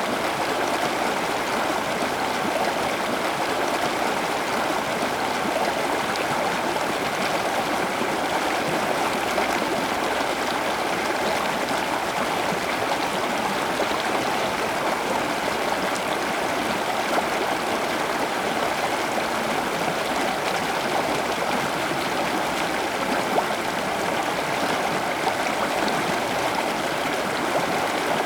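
Steady running water, an even rushing flow like a small stream, with a few faint ticks.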